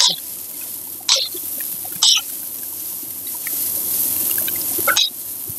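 Spaghetti sizzling in oil in a metal wok as it is stir-fried, with a steady frying hiss and four short, sharp scrapes of the spatula against the wok.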